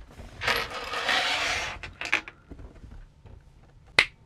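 Small bolts, nuts and washers slid across a wooden tabletop by hand and set down: a scraping rush lasting about a second and a half, then a few light clicks, and one sharp click near the end.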